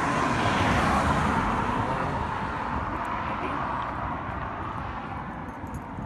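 Road traffic noise: a vehicle passes, swelling in the first second or two and slowly fading, over a steady low rumble.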